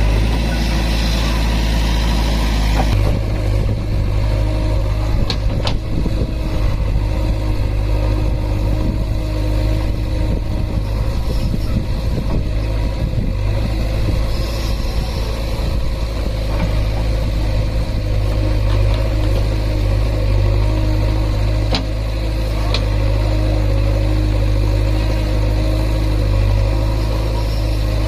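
Diesel engine of a JCB 3DX backhoe loader running steadily as the backhoe digs earth and swings to dump it into a truck, with a few brief sharp knocks along the way.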